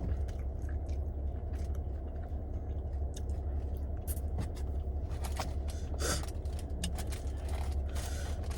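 Close-up chewing and biting of a taco, with wet mouth clicks and crunches scattered through, over a steady low hum.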